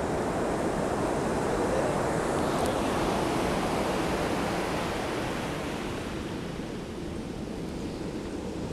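Ocean surf washing onto the beach: a broad rush that swells over the first few seconds and eases off after about five seconds.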